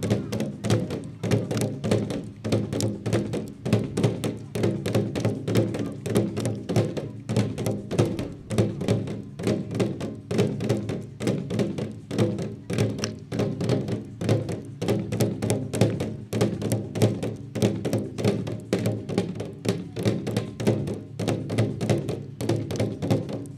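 Tall wooden drum with a laced skin head beaten in a fast, even rhythm of deep strokes, several a second, without pause.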